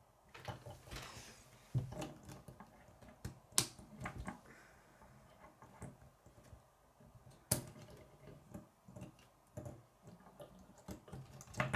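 K'nex plastic rods and connectors being handled and snapped together: sharp plastic clicks at irregular intervals, the loudest about three and a half and seven and a half seconds in, with softer rattling of pieces between.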